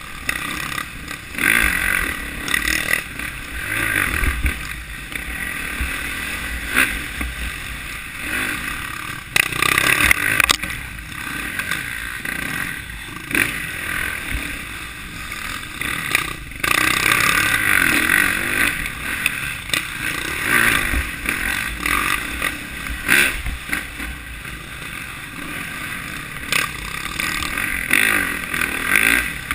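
Dirt bike engine being ridden, revving up and down again and again as the throttle opens and closes, with rumble from the ride.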